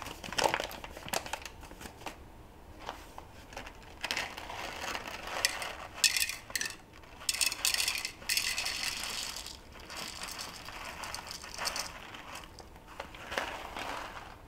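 Green coffee beans poured from a paper bag into a small plastic measuring cup: the bag crinkles and the hard beans rattle into the cup in several short bursts, with handling clicks between them.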